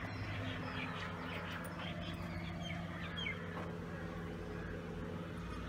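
Outdoor background: a steady low hum with faint bird chirps over it, mostly in the first half.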